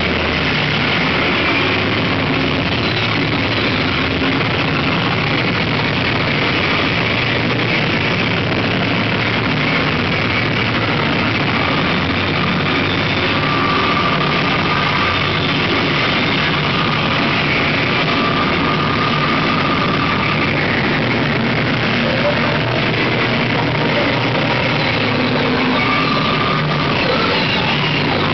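Noise band playing live through amplifiers: a dense, unbroken wall of electronic noise over a low rumbling drone, with a few thin held tones surfacing now and then.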